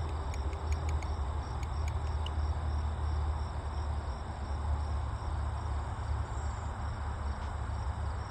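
Steady outdoor background: a low rumble and an even hiss, with faint, regular high-pitched chirping over the top. No clear motor sound from the distant plane stands out.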